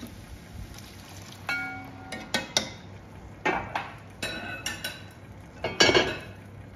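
Enamelled cast-iron cookware clinking and knocking as a heavy pan lid is handled. There is a short ringing clink about a second and a half in, then scattered knocks, and the loudest knock comes about six seconds in as the lid is set down on the stove.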